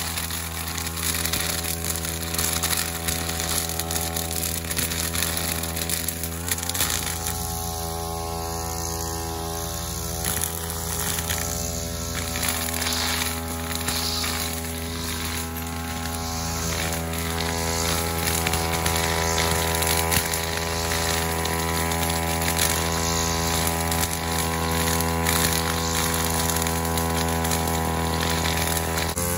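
Backpack brush cutter's small engine running steadily at high speed while its shaft-mounted head cuts grass and weeds, its pitch holding nearly constant.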